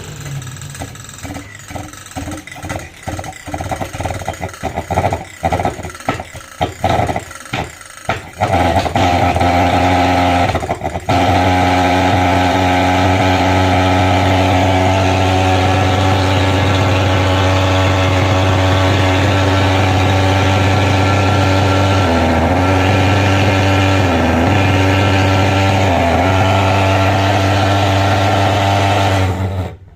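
Mahkota pulse-jet thermal fogging machine being started: about eight seconds of irregular sputtering pops while it is hand-pumped, then it catches and runs with a loud, steady low drone. It falters briefly once a few seconds after catching and is cut off suddenly near the end.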